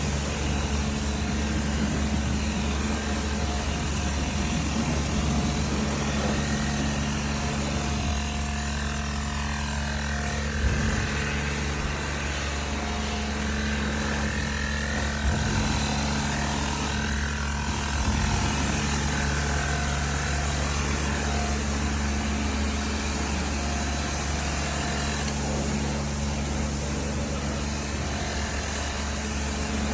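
A machine motor running steadily with a low, constant hum under a continuous hiss, with a few brief small bumps along the way.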